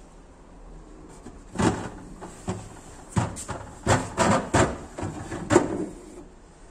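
A series of about eight sharp knocks and clatters, starting about one and a half seconds in and ending near the end, from doors or fittings being handled.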